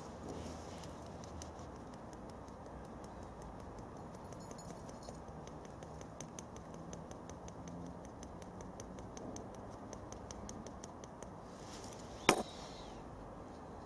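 Faint rapid ticking, about four ticks a second, while ground coffee is put into the filter of an Esbit coffee maker, then one sharp knock about twelve seconds in.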